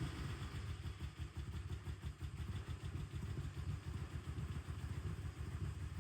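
GMC Sonoma's 4.3 L V6 engine idling with a steady, rapid low pulsing.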